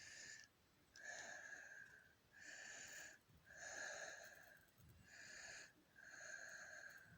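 A person's faint wheezy breathing: about seven breaths in a steady rhythm, roughly one a second, each with a thin whistling tone.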